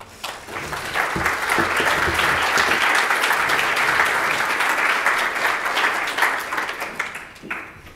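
Audience applauding: the clapping builds up within the first second, holds steady, and dies away near the end.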